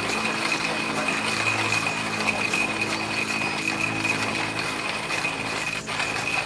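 Hand-cranked coffee grinder being turned steadily, the beans crunching in a dense, even stream of small clicks. A steady high tone runs beneath it.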